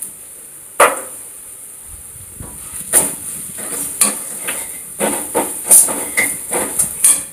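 Onion masala sizzling in a kadai with a steady hiss, and a steel spatula scraping and clinking against the pan as it is stirred, the strokes coming quickly in the second half. A sharp knock sounds under a second in.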